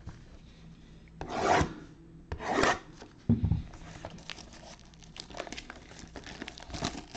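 Cardboard trading-card hobby box handled and slid against a surface: two loud scraping rubs, a knock a little after three seconds in, then lighter clicks and rustles as it is turned over in the hands.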